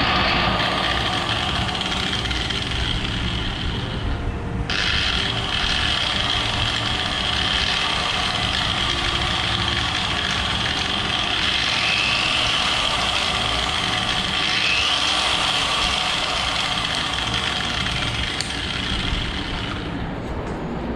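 A 900-watt angle grinder with a flap disc, running free through a homemade SCR speed controller: a steady motor whine. The high part of the whine drops out briefly about four seconds in and comes back, and its pitch rises around twelve to fifteen seconds in as the motor speed changes.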